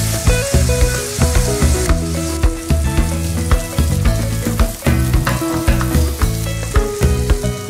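White fish fillets sizzling in hot olive oil in a frying pan, with background music playing underneath.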